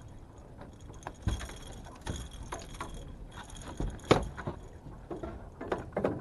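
Scattered knocks and light clinks of fishing gear being handled and of footsteps on a boat deck. The sharpest knock comes about four seconds in.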